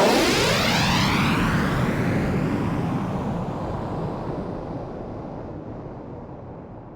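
A loud vehicle passing by, loudest right at the start and then fading away steadily over several seconds.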